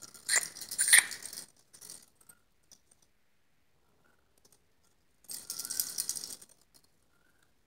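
Plastic baby rattle shaken in two short bouts of quick rattling: one over the first second and a half, and another about five seconds in.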